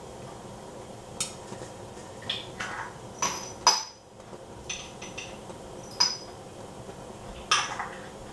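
Covered metal saucepan of popcorn kernels heating in oil: scattered sharp ticks and pops, roughly one a second, each with a brief metallic ring from the lid, over a steady low hiss.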